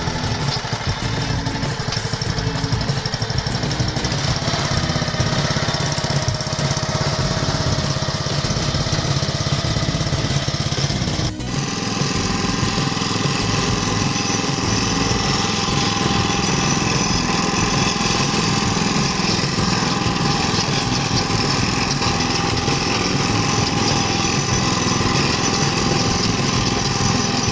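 Kubota small tiller's single-cylinder OHV engine running steadily, now starting and running after repair of its fuel cock and starter rope. After a short break about eleven seconds in, the engine runs on with a changed tone as the tiller is driven along.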